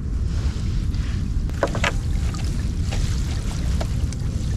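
A gill net being hauled by hand into a small wooden boat: light splashes, drips and scattered clicks of the wet net over the gunwale, over a steady low rumble of wind on the microphone and water around the hull.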